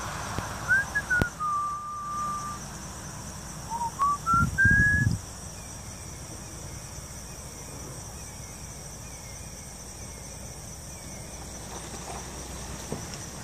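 A person whistling a few short notes: a rising note, a held steady note, then a climbing run of notes. A steady high-pitched drone of insects runs underneath, and a brief low rumble comes with the last whistles about four to five seconds in.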